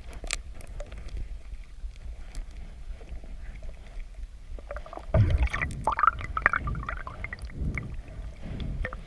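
Water splashing and sloshing, loudest from about five seconds in, over a low steady rumble, with a few sharp clicks in the first second.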